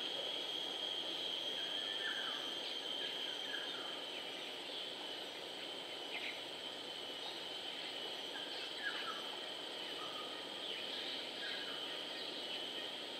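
Steady high-pitched insect drone, with faint short bird chirps scattered through it every second or two.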